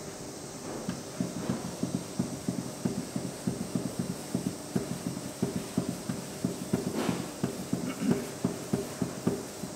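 Hands rubbing and raking damp buckwheat flour against the inside of a lacquered soba kneading bowl in quick, even strokes, about three or four a second, starting about a second in. It is the first mixing of water into the flour, as the dry flour turns to crumbs, with a couple of sharper scrapes near the end.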